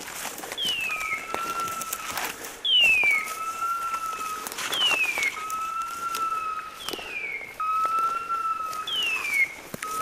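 Electronic beeper collar on a pointing dog sounding its point signal, five times about two seconds apart. Each call is a falling screech-like whistle followed by a held steady tone, the signal that the dog is standing still on point. Footsteps crackle through the brush under it.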